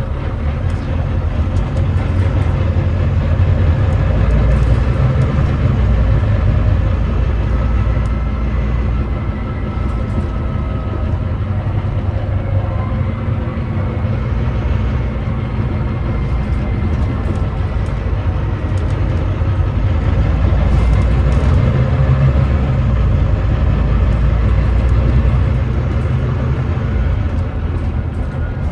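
Volvo B9TL double-decker bus with a Volvo D9B 9.3-litre diesel and ZF Ecolife six-speed automatic, running under way with a heavy low rumble that swells and eases, including a downshift about two-thirds of the way through. The engine is one the uploader calls misfiring and thrashy.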